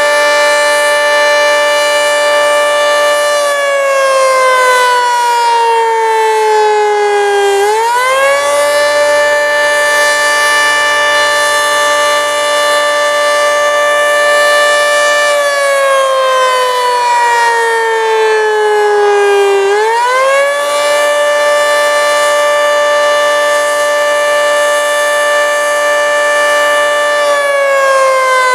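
Federal Signal 3T22 three-tone warning siren sounding its attack signal: a loud chord that holds at the top for several seconds, slides down over about four seconds, then quickly climbs back, repeating about every twelve seconds. The siren probably has a stuck solenoid box.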